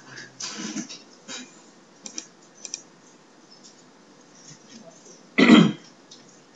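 Computer keyboard typing and mouse clicks: a few scattered taps and clicks, then one much louder thump about five and a half seconds in.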